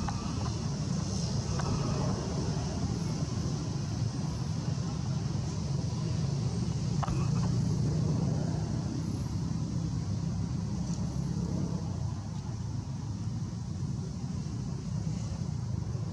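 Steady low rumble of distant vehicle traffic, swelling a little around the middle.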